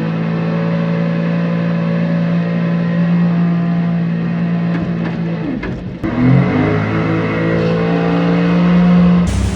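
Seabreacher watercraft engine running steadily. About six seconds in it briefly drops off, then revs back up with a rising pitch. Just at the end the sound switches abruptly to a loud rushing noise.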